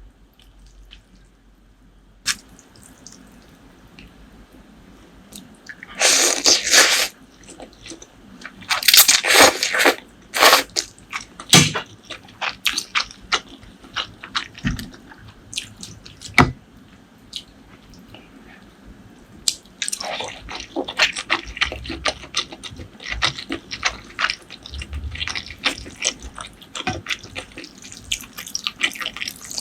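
Close-miked eating sounds: wet mouth smacks and clicks, with two longer noisy bursts about six and nine seconds in and denser clicking in the second half.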